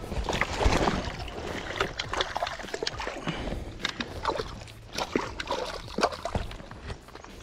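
Water splashing and sloshing in a shallow stream, in irregular small splashes, as a hooked trout thrashes and is scooped into a landing net.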